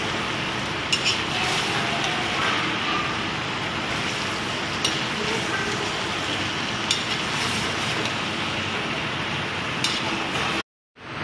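Food frying and sizzling in a pan as it is stirred, with a few sharp clinks of the utensil against the pan. The sound cuts out for a moment near the end.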